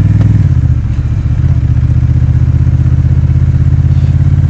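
Honda Rebel 1100's parallel-twin engine running under way, with a steady low pulsing note. The note dips briefly and shifts about half a second in, then settles again.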